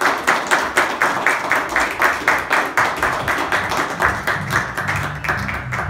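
A room of people clapping and applauding, the claps falling in a fairly even rhythm of about four a second. Music with low held notes comes in underneath about four seconds in.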